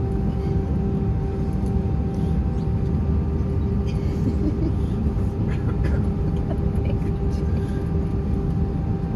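Airbus A320 cabin noise heard from a window seat: a steady engine hum and low rumble with a steady mid-pitched tone that pulses for the first couple of seconds, and a few faint rattles around the middle.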